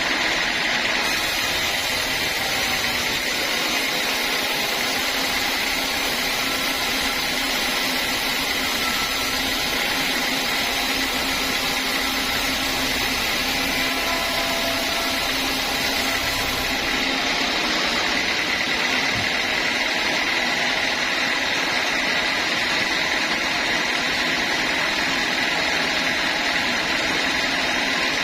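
Sawmill machinery running steadily, sawing timber. A higher hiss joins about a second in and drops away about two-thirds of the way through.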